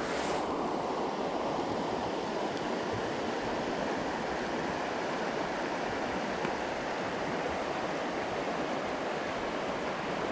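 Shallow stream running over a rocky bed: a steady rushing of water.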